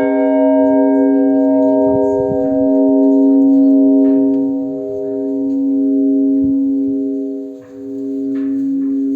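Large church bell ringing on after a single blagovest stroke, its deep hum slowly swelling and fading as it dies away.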